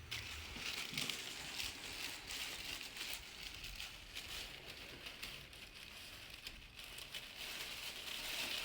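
Faint, continuous rustling and crinkling with many small crackles as a patient is handled and repositioned on a chiropractic table.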